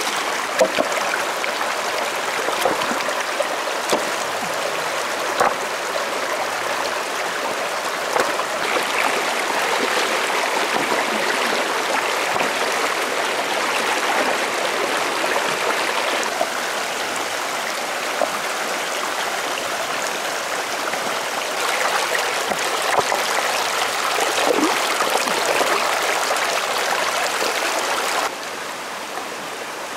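Shallow rocky stream rushing steadily over stones, with a few sharp knocks now and then. Near the end it drops to a quieter flow.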